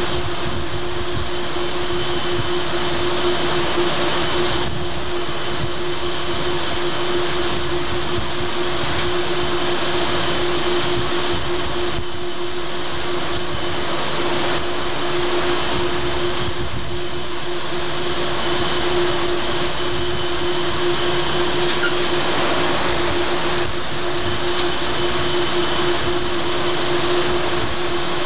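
Steady rush of wind and sea with gusty rumble at the bottom, and a constant hum from the ship's machinery running underneath.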